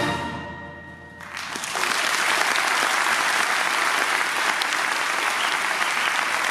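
A middle school concert band's final chord rings out and fades over about a second, then the audience breaks into steady applause.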